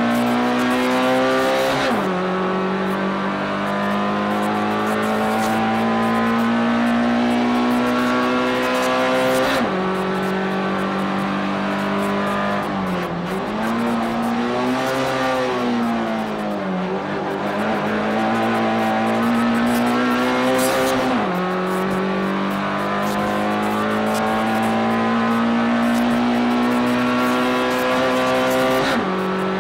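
Race car engine heard from inside the cockpit under hard acceleration, rising steadily in pitch and dropping sharply at each upshift: about two seconds in, near ten seconds, a little after twenty seconds and near the end. In the middle the revs fall, swell briefly and fall again, as when the driver lifts for a corner, before climbing once more.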